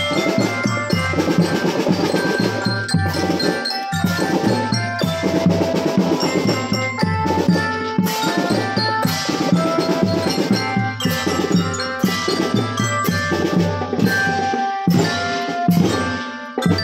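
Drum band playing a tune: a pitched melody carried over a steady rhythm of drums.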